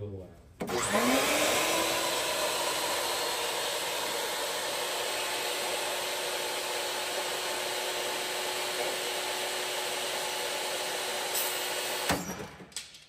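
SawStop jobsite table saw switched on: the motor spins up with a rising whine and runs steadily. Near the end it stops dead with a sharp snap, with no coast-down: the flesh-sensing brake firing as the spinning blade touches a hot dog.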